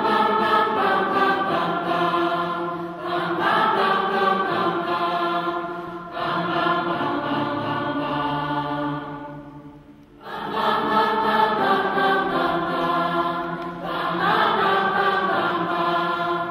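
Large mixed choir singing a slow song in long held notes, breaking off briefly about ten seconds in before singing on.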